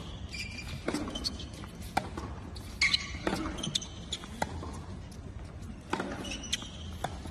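Tennis rally on a hard court: the ball struck back and forth by racquets, sharp knocks every second or so, with short high squeaks of shoes on the court, in a large indoor arena over a hushed crowd.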